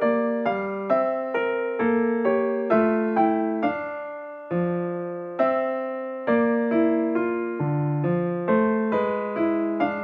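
Background music played on a piano-like keyboard: gentle chords struck about once a second, each left to fade.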